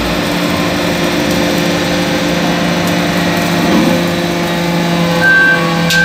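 Hydraulic power unit of a Y81-4000 metal-chip briquetting press running steadily during a pressing cycle, a constant mechanical hum. A thin high whine joins in about five seconds in.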